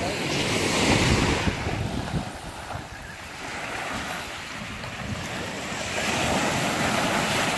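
Surf washing against the jetty rocks, with wind buffeting the microphone. It is a steady rushing noise that swells about a second in and again near the end.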